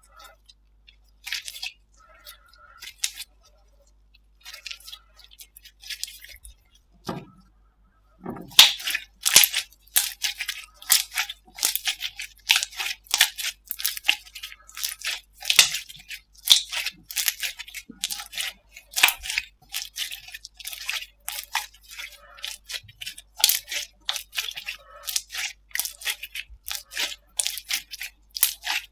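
Slime being squeezed and worked by hand, giving sparse sticky clicks at first, then a dense run of crackling pops from about eight seconds in.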